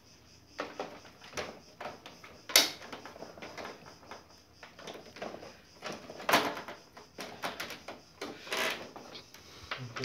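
Plastic front cover of a split air conditioner's indoor unit being handled and pressed back into place: a run of irregular clicks and knocks, the loudest about two and a half seconds in.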